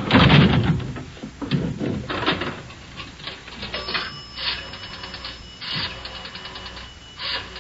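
Telephone sound effects: a loud knock as the call begins, then several runs of rapid mechanical clicks from a telephone dial being turned, with a faint steady high tone joining about halfway through.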